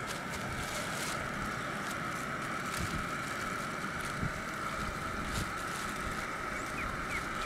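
Wind rumbling on the microphone over a steady, even hiss, with a few short bird chirps near the end.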